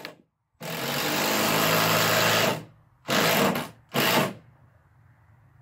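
Cordless drill driver driving a screw to secure a hanging shed door panel: one long run of about two seconds, then two short bursts.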